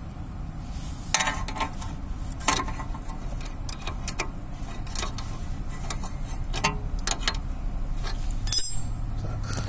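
Hand tools clicking and clinking on the steel suspension arm during a ball joint job: irregular sharp ticks with a few short metallic rings, the loudest near the end, over a steady low hum.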